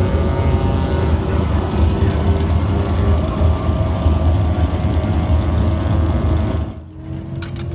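Rotary-engined drag car running flat out down the strip, a loud steady engine note heard from behind the start line. The sound drops away sharply near the end.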